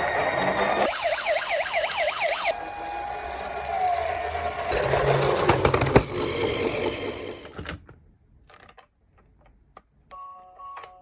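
Toy police car's electronic siren yelping fast, then rattling and whirring until it stops about eight seconds in. A short chime melody starts near the end.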